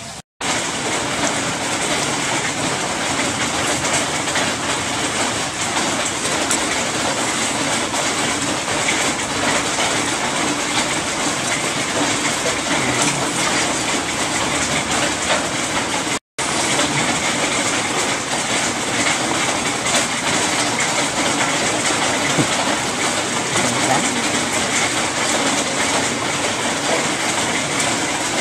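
A steady, loud hissing crackle that cuts out sharply twice, just after the start and about sixteen seconds in.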